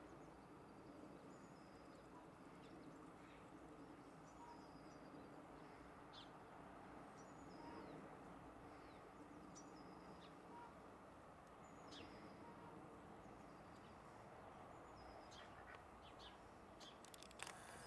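A small bird calling faintly and repeatedly, a short two-note call that drops in pitch, about every second and a half, over a faint steady low background rumble. A few soft clicks near the end.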